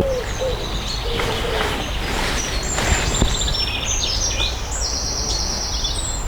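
Small songbirds singing, with chirps and rapid trilled phrases, over a steady low rumble.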